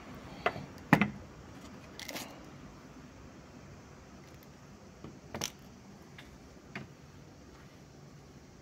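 Hands handling small objects: a few sharp clicks and knocks, the loudest about a second in, then fainter ones spread out over the next several seconds.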